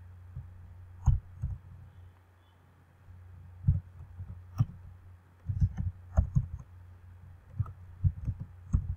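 Computer keyboard keys clicking as someone types, in short irregular runs of keystrokes, over a low steady hum.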